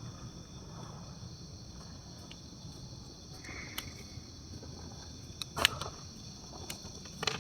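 Crickets chirring in a steady high-pitched night chorus, with a few faint clicks and a brief knock about five and a half seconds in.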